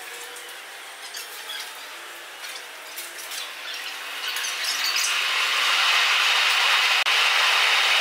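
Sped-up sound from a railway maintenance shed, played at eight times speed so that it is high-pitched and chipmunk-like: scattered clicks and squeaks, then a loud, steady hiss that builds from about halfway in and holds.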